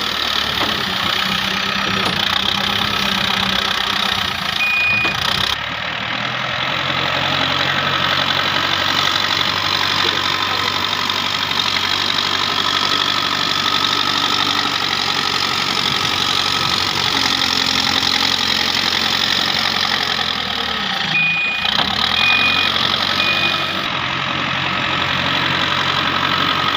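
Heavy diesel engine of earth-moving machinery running steadily at idle. Near the end come three short high beeps about a second apart.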